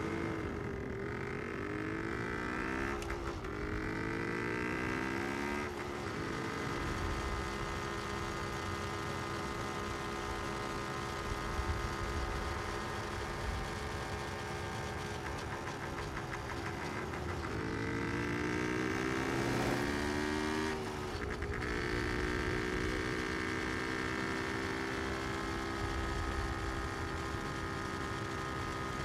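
Car engine running while driving, heard from inside the car. A few seconds in, and again about two-thirds of the way through, its pitch rises in two successive sweeps as it accelerates through the gears; otherwise it holds a steady cruising note.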